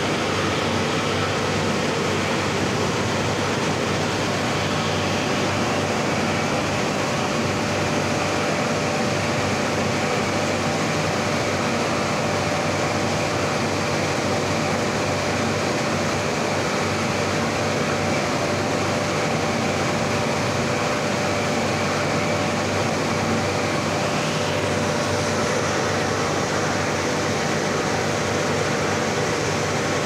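A 3-ton rotary aluminium melting furnace firing: its burner and air blower run with a steady rushing noise. A faint steady whine joins in a few seconds in.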